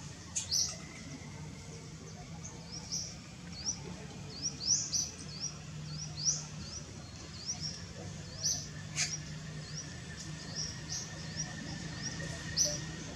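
Small birds chirping over and over, short high rising chirps several times a second, over a low steady hum, with one sharp click about nine seconds in.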